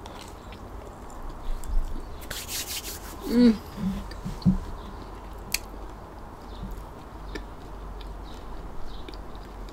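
Eating sounds from a crusty baguette sandwich: a crunchy tearing bite of the crust about two seconds in, a brief falling hum of 'mm' just after, then quieter chewing with small lip clicks.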